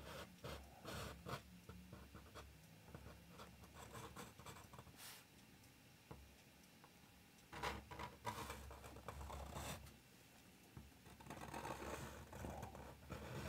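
Faint scratching of a brush pen's strokes on paper as lines are drawn, in short bursts, busiest about eight seconds in and again near the end.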